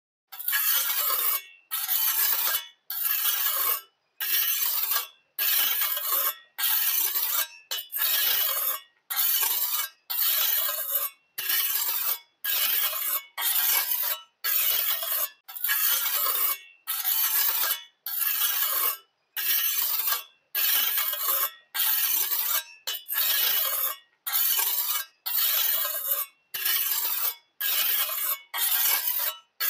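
Small metal trowel scraping and smoothing wet cement across a flat slab, in repeated rasping strokes about one and a half seconds apart, with silence between them.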